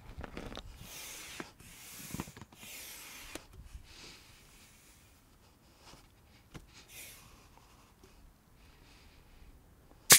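Short bursts of rubbing and hissing as a pump hose is worked into an inflatable kayak's air valve, ending in one sharp click about ten seconds in.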